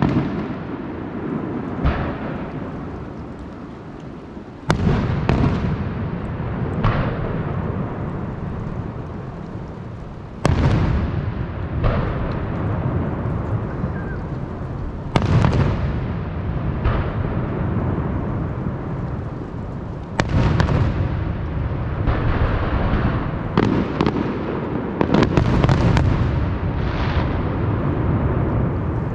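Fireworks shells bursting in a display, a loud boom every few seconds, each followed by a long rumbling decay. Several bursts come close together near the end.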